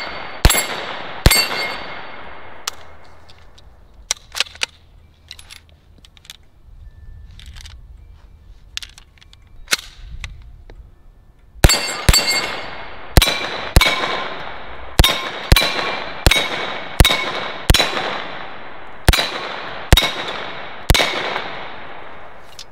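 Single aimed shots from an HK SP5 9mm semi-automatic short-barreled rifle: two sharp shots at the start, a stretch of only faint clicks and knocks, then a steady string of about a dozen shots roughly one every 0.7 s. The string stops with rounds still in the magazine: a malfunction, in a gun that was dirty and short of oil.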